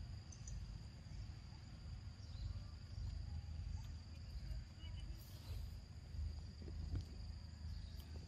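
Insects chirring steadily at one high pitch, over a continuous low rumble like wind on the microphone, with a couple of faint ticks.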